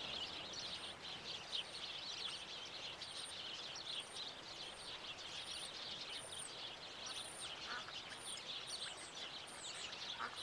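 Faint outdoor ambience of many small birds chirping continuously, with a thin high note repeating about once a second. A duck quacks faintly near the end.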